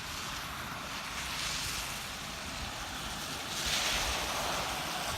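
Car tyres hissing through water on a flooded road, with a steady wash of water noise; the hiss swells louder about three and a half seconds in as the car draws close.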